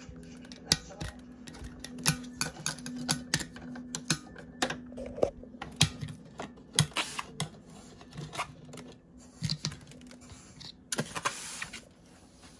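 A run of irregular light clicks and taps as a glass slow-cooker lid with a metal rim is handled and knocked against the crock while being seated.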